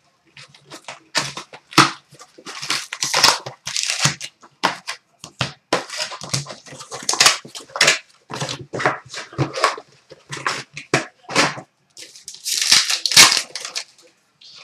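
A cardboard box of hockey card packs torn open, the packs set down one after another, then a pack wrapper ripped and crinkled: a run of irregular rustling, crackling and tearing.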